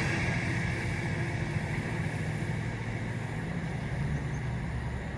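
Class 68 diesel-electric locomotive's Caterpillar V16 engine running under power as it hauls the train away, the sound slowly fading.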